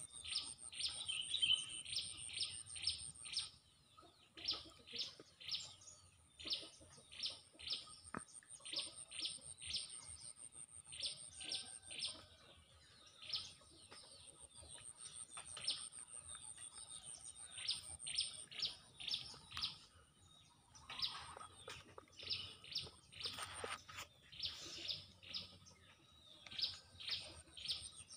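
Small birds chirping, short high notes repeated in quick runs of four to six with brief gaps between runs. A steady thin high buzz runs underneath, and a short rustling noise comes about three-quarters of the way through.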